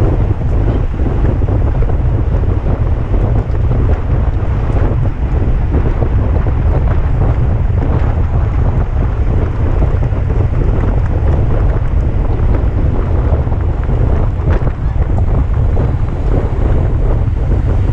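Wind buffeting the microphone of a camera on a road bike racing at speed: a loud, steady rumble with a rough rushing hiss over it.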